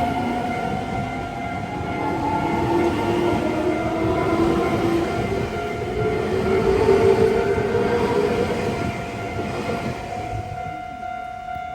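Nankai electric train running by, its motor whine rising slowly in pitch over steady wheel and rail noise, then fading away over the last couple of seconds.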